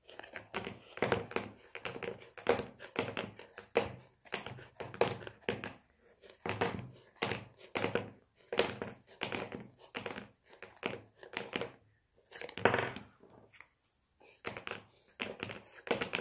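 Embroidery floss being wound round and round a card to make a tassel: a repeated short rustle and scrape of thread and fingers on the card with each wrap, about two a second, with brief pauses.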